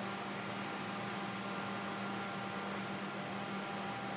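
A powered-up TRS-80 Model 16B computer running steadily: an even hum with a low tone under a hiss of fan noise.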